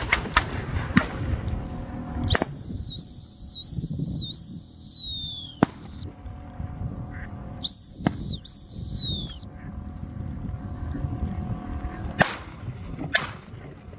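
Dog training whistle blown in short blasts, each falling in pitch: a run of four, then two more after a pause, signalling a retriever swimming out on the water. Two sharp clicks near the end.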